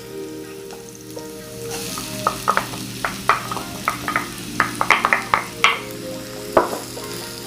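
Garlic and onions sizzling in hot oil in a pan, with a utensil stirring and clicking against the pan many times from about two seconds in. Faint background music underneath.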